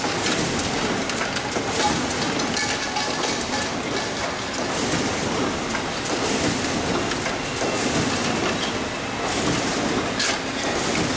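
Automatic UV screen printing machine running: a steady mechanical clatter with many quick clicks throughout.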